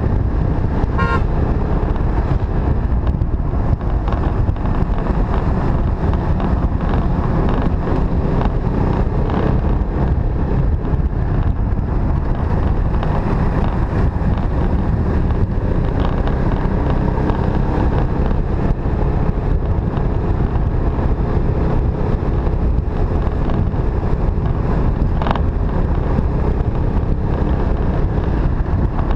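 Motorcycle ride at road speed: the bike's engine running steadily under wind rushing over the microphone. A brief high tone sounds about a second in.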